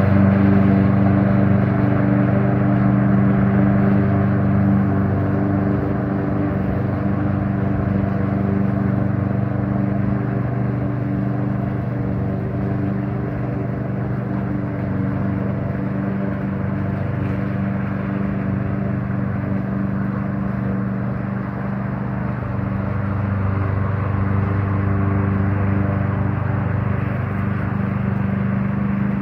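Evatech robotic lawn mower's engine running steadily under autopilot with an even hum, a little quieter in the middle and louder again in the last few seconds as it moves away and back.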